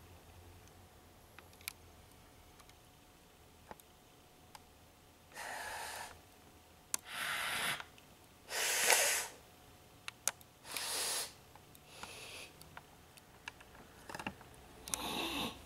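A person breathing audibly close to the microphone: six short breaths about one and a half to two seconds apart, starting about five seconds in, with faint clicks between them.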